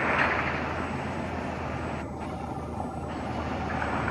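Motor vehicle traffic running by: a steady road-noise rumble with a short hiss right at the start.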